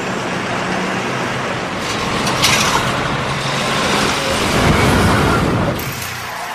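Motor vehicle engines running in street traffic, with one vehicle's rumble swelling about four to five seconds in and then falling away. A sharp click about two and a half seconds in.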